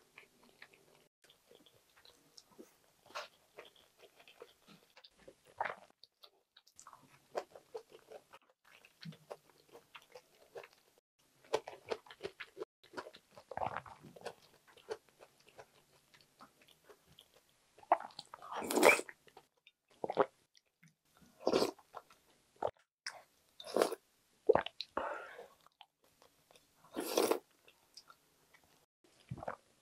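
Close-miked chewing of rice and Korean side dishes, with irregular crunching bites; the loudest crunches come in the second half.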